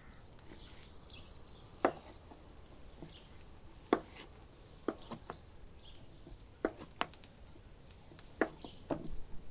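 Chef's knife slicing through soft cheese and knocking down onto a wooden cutting board: about eight separate sharp knocks, irregularly spaced, one every second or so.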